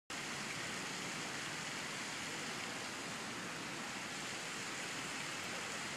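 Steady, even rushing noise with no distinct events, starting abruptly at the start.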